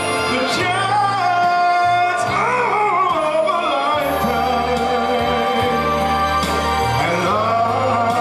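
A man singing into a microphone over an instrumental backing track, with long held notes that bend and slide in pitch.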